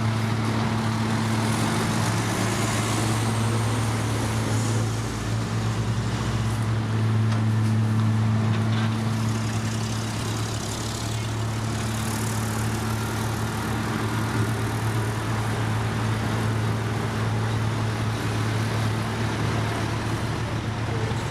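Diesel engine of heavy road-construction machinery running steadily at a constant pitch.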